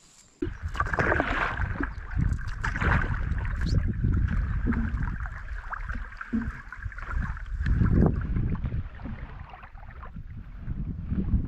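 A canoe being paddled on a lake, with water sounds from the strokes under heavy wind rumble on the microphone. It starts suddenly about half a second in.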